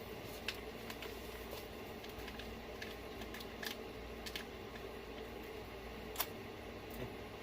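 Scattered light clicks and taps of small tools and metal parts being handled while an RC truck's differential is worked on, the sharpest click about six seconds in, over a faint steady hum.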